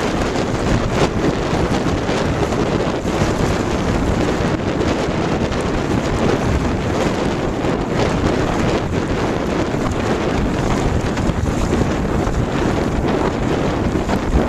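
Strong wind buffeting a smartphone microphone mounted on a sailboat's gunwale, with water rushing along the hull as the boat sails. Loud, steady rumble with scattered short crackles.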